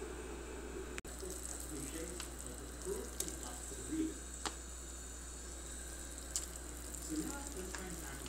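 Meatballs in tomato sauce simmering in a pot, a steady bubbling hiss, with a few light clicks and knocks around the middle as the lid is lifted.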